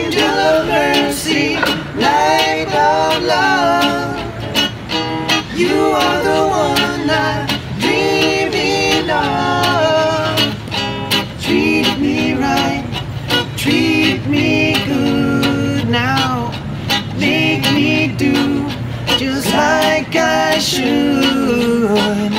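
Hollow-body archtop guitar strummed in a rocksteady rhythm while several male voices sing in close harmony.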